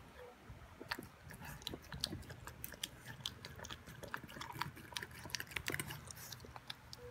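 Boston Terrier puppy eating from a stainless steel bowl: a quick, irregular run of wet chewing and licking smacks and clicks.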